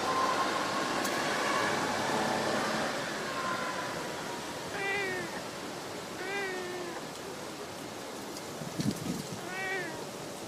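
A stray domestic cat gives three short, soft meows, each rising and then falling in pitch, about five, six and a half and nearly ten seconds in. A couple of brief low thumps come just before the last meow, over a steady outdoor hiss.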